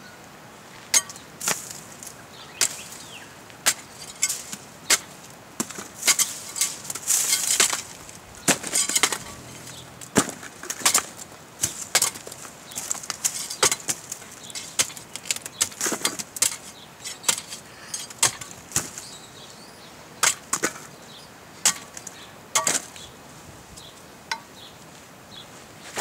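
Cold Steel Special Forces Shovel's sharpened blade chopping into fleshy prickly pear cactus pads. Many sharp strikes come about one a second, bunched thickly about six to eight seconds in.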